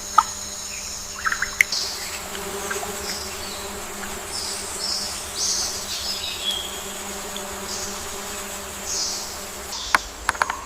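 A flying insect buzzing steadily among high-pitched rainforest insect chirps, with a few sharp clicks near the start and again near the end.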